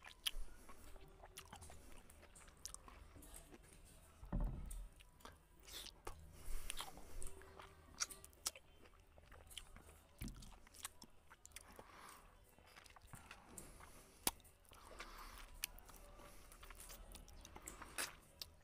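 Close-miked eating sounds of a person eating rice and fried rohu fish in curry by hand: wet chewing, lip smacks and small crunches, with fingers mixing food on the plate. A low thump about four seconds in.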